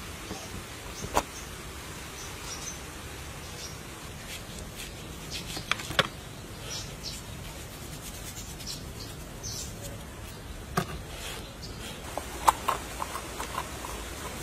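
A knife working a raw pumpkin: scattered sharp clicks and cracks of the blade against the rind and flesh, a few seconds apart with a small cluster near the end, over a faint steady hiss.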